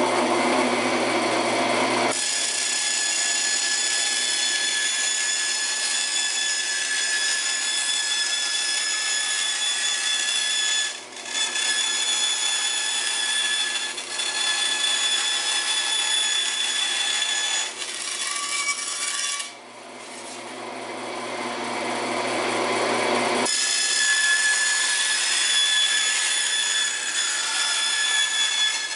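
Delta bandsaw with a coarse skip-tooth blade cutting thin aluminum sheet: a steady high-pitched whine and rasp of the blade in the metal, dipping briefly twice, about eleven seconds in and again near twenty seconds.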